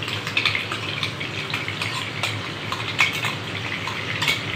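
Ground onion paste sizzling in hot oil in a nonstick kadhai, with a steady hiss throughout. A metal spoon clinks and scrapes against a steel bowl several times as the paste is scraped out into the pan.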